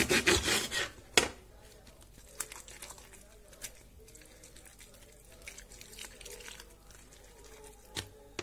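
Artichokes being trimmed by hand: crackling rustle and snapping of tough artichoke leaves and a paring knife, loudest in the first second with a sharp click just after, then faint scattered clicks and rustles.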